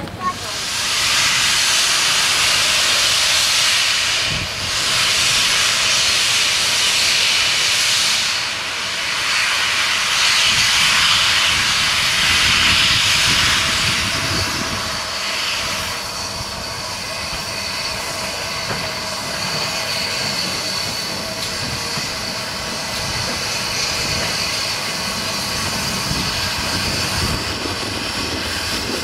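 Steam locomotive letting off steam: a loud, steady hiss that eases to a quieter hiss with a faint steady whine about halfway through.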